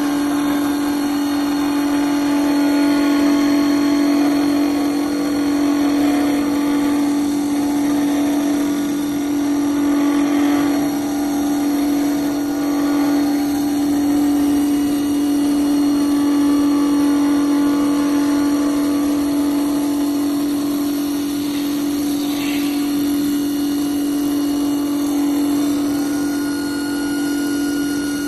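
WS-L1530S CNC wood lathe turning a wooden spindle: a steady machine hum with one strong, unbroken tone, and the rushing noise of the cutting tool shaving the spinning wood, swelling and easing a little as the cut moves along the profile.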